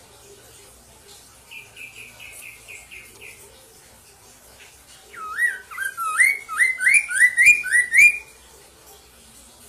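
Caged poksay mandarin (a laughingthrush) singing: a quick run of short high notes, then about eight loud upslurred whistles in a row that stop abruptly about eight seconds in.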